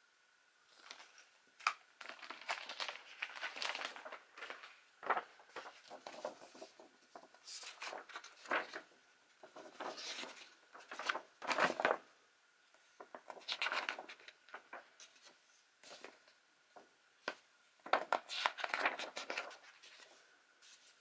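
A small plastic parts bag and a paper instruction manual being handled: irregular bursts of rustling and crinkling as pages are turned, with a few sharp snaps.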